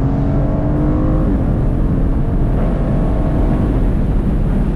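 Aston Martin Vantage Roadster's 4.0-litre twin-turbo V8 accelerating, its note rising until a sudden upshift about a second in. It then pulls on more quietly under heavy wind and road noise with the top down.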